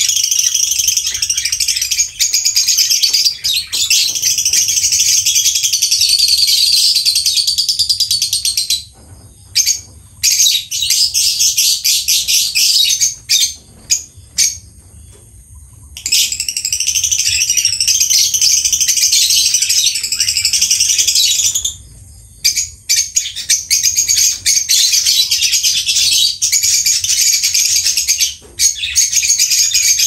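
Small pet parrots chattering in long, fast, high-pitched runs, broken by a few short pauses.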